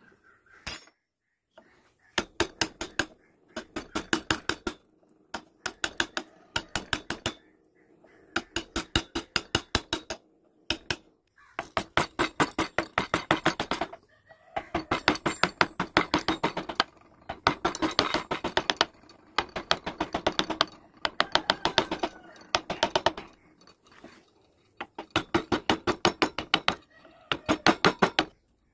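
A carving chisel being driven into wood with quick mallet taps, several a second, in runs of a second or two separated by short pauses.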